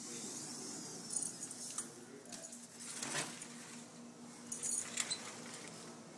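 Metal collar tags on a whippet jingling in a few short, light bursts as the dog jumps and pounces, over a faint steady hum.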